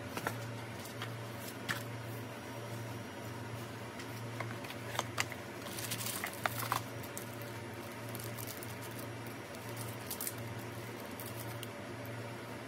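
Paper and cardboard packaging handled by hand: soft rustles, scrapes and light taps, with a cluster of sharper clicks about five to seven seconds in. A steady low hum runs underneath.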